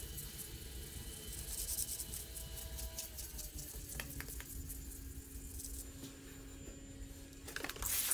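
Steel scraper blade being rubbed back and forth on wet 1200-grit sandpaper, a faint wet scraping as the edge is honed. Near the end a trigger spray bottle gives a few quick squirts of water onto the paper.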